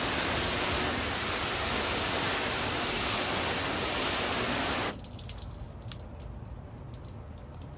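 A hose spray rinsing car-wash suds off a pickup truck's door panel: a steady rush of water spray that cuts off sharply about five seconds in, after which water drips and trickles off the body.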